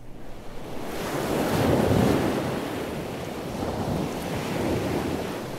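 Ocean surf washing in: a swell of wave noise that builds to its loudest about two seconds in and then eases off, with a smaller swell later.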